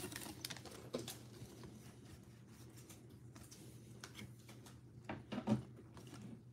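Faint handling of a stack of trading cards, the cards sliding and being flipped through in the hands, with a soft tap about a second in and a couple of soft knocks a little past five seconds.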